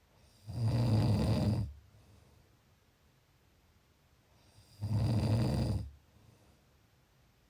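A person snoring: two low snores about four seconds apart, each lasting about a second.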